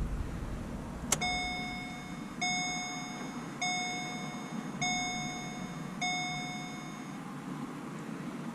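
A click, then a Holden VE Commodore's dashboard warning chime dinging five times, evenly about a second and a quarter apart, each ding fading away. This is the car's electrics being switched on for a test.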